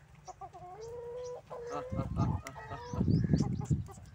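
Rooster making long, drawn-out low calls, its voice one the owner says has changed a lot as it grew. Sharp finger snaps come in among the calls, and there are dull low rumbles about two and three seconds in.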